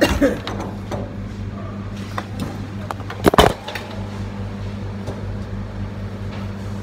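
Steady electric hum of a running kitchen appliance, with a short clatter at the start and a louder clatter about three seconds in.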